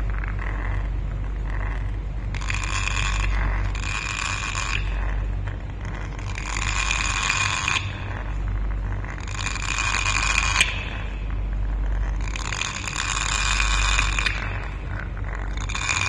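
Grey parrot giving a series of harsh squawks, six of them, each about a second long and a couple of seconds apart, over a steady low hum.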